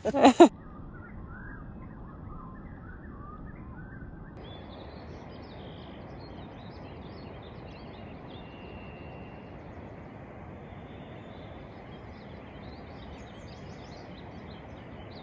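Faint bird chirps over a steady outdoor hiss. About four seconds in the background changes abruptly, and the chirps that follow are higher and thinner.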